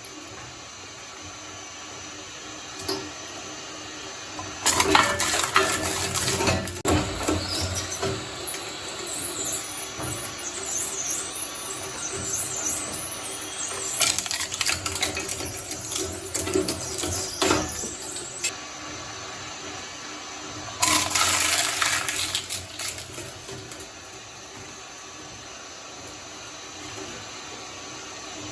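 Shredder running with a steady hum as slime is fed through its blades, giving wet, squelching crunches in three bursts, the first and longest about five seconds in.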